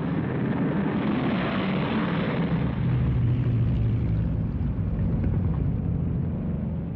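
Piston engines of a four-engine B-29 Superfortress bomber droning as it flies past. The drone builds to its loudest midway and fades away near the end.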